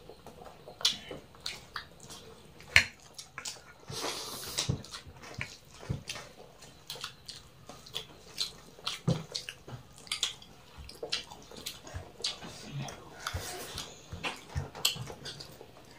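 People eating rice and curry with their hands: chewing and lip smacks mixed with fingers working rice on steel plates. These come as many short, irregular clicks and smacks, one sharp louder click about three seconds in.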